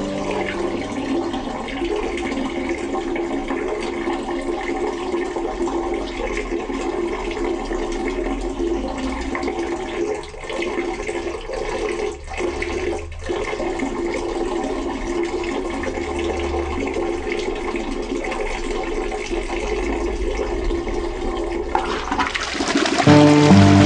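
A toilet flushing and its cistern refilling: a steady rush of water with a few brief dips about halfway through. Music comes in near the end.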